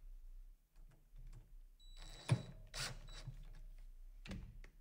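Faint short runs of a cordless DeWalt driver driving screws into a door hinge, with clicks and knocks from handling the tool.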